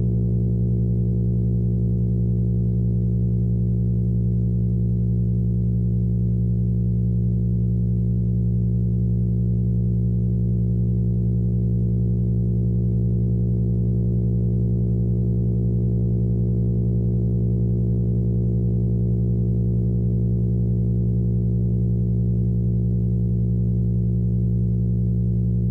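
A steady, unchanging low drone of several layered tones, presented as the 'sound' of Uranus's moon Oberon: an audio rendering of space data rather than sound heard in space.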